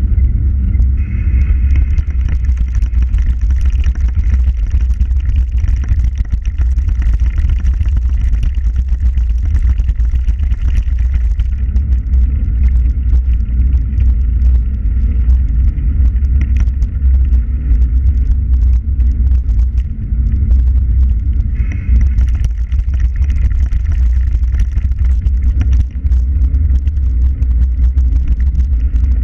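Loud, steady low rumble of wind buffeting the microphone of a camera moving along a paved path, with tyre and road noise beneath it.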